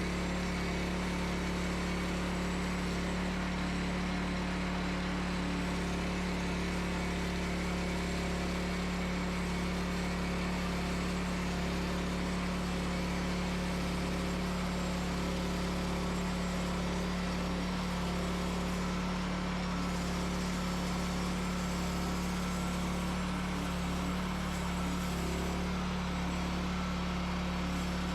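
Wood-Mizer LX25 band sawmill running steadily, its engine humming evenly while the blade saws boards off a small cedar log.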